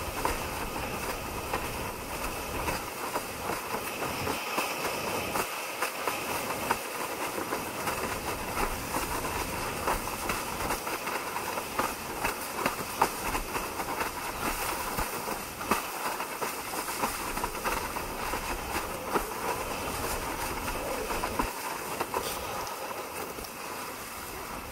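Windsurf board planing fast over choppy water: a steady rush of water and spray with many small knocks and slaps as the hull chatters over the chop.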